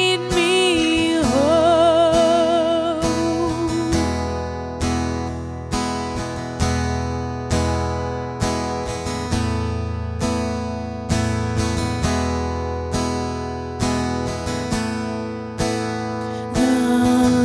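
A song with a singer's wavering held note at the start. It moves into an instrumental stretch of chords struck about once a second, and the singing comes back near the end.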